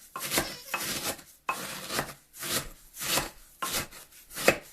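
Cornflakes being crushed with a Pampered Chef Mix 'N Chop, pressed down again and again: a run of crunching strokes about two a second, the sharpest one near the end.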